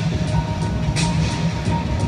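Loud music with a heavy bass and a sharp hit about every second and a half, over thin held notes.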